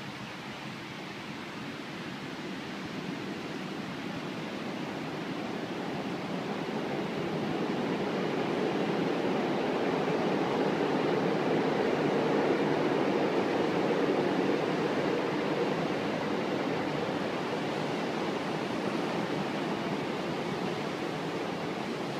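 Sound of a thunderstorm: a steady rushing noise with no sharp claps, swelling slowly to its loudest about halfway through and then easing a little.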